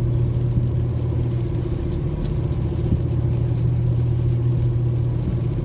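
Steady drone of a car driving at speed, heard from inside the cabin: a constant low hum of engine and road noise with no change in pitch.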